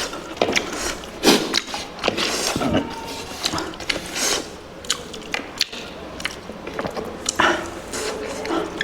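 Close-miked eating sounds: spicy pork curry being chewed and crunched, with many irregular crunches and clicks.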